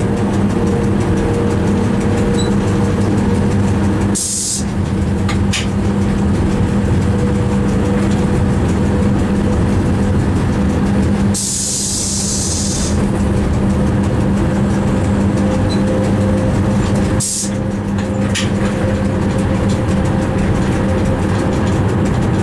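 Inside an electric train's cab while running: a steady rumbling drone with a constant low hum and a higher steady tone. Three short bursts of hissing air break in, about four seconds in, around eleven seconds in lasting a second or two, and about seventeen seconds in.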